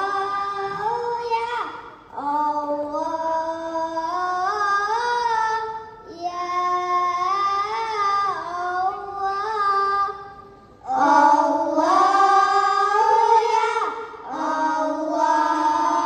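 A child's voice singing solo into a microphone through a PA system. It sings in long phrases of held notes that bend and slide in pitch, with short breaths between the phrases.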